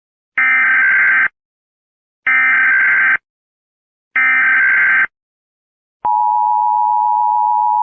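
Emergency Alert System header: three bursts of digital data tones, each about a second long and about two seconds apart. About six seconds in, the steady two-tone EAS attention signal begins.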